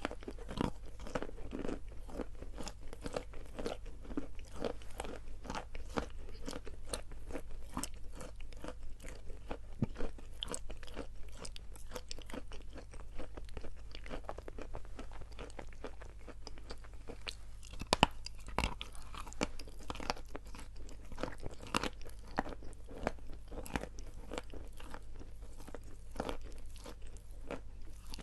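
Chalk being bitten and chewed close to the microphone: a dense run of dry, crisp crunches and small cracks, with one sharper crack about 18 seconds in.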